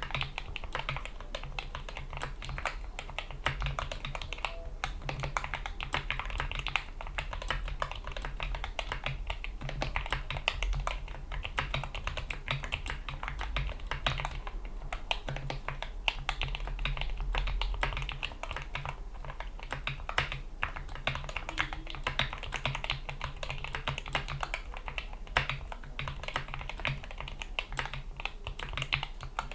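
Continuous typing on a GK61 mechanical keyboard with lubed Gateron Yellow optical linear switches, PBT keycaps and rubber O-rings: a rapid, dense run of keystroke clicks and clacks, with a faint low hum beneath.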